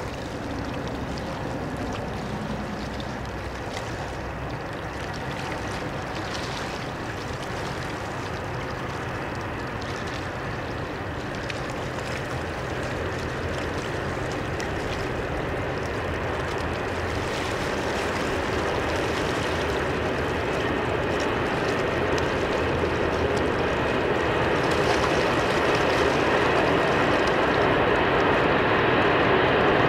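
Freight train of hopper wagons behind a Class 185 electric locomotive running along the track: a steady rumble that grows gradually louder.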